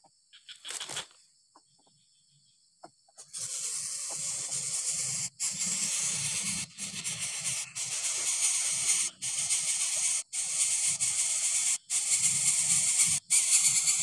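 Coucal nestling begging with a loud, harsh hiss as an adult feeds it. The hiss starts about three seconds in and goes on in long rasps, broken by brief pauses roughly every second. Before it there is only a faint steady insect hum.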